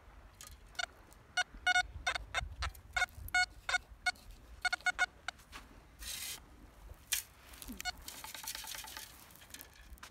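XP ORX metal detector giving a quick run of short, high beeps of one pitch as it signals a target. About six seconds in comes a brief rush of sand, then a longer hiss of sand sifting through a metal-mesh scoop.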